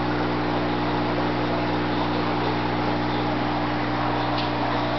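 Steady electric hum of aquarium equipment, such as air pumps and filters, running in a room full of fish tanks: a constant low tone under an even wash of noise. A faint tick about four and a half seconds in.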